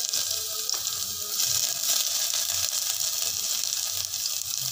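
Chopped ginger and garlic sizzling steadily in hot mustard oil in a pressure cooker.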